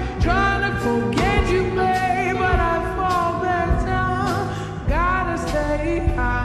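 Background pop song with a sung vocal over bass and a steady drum beat.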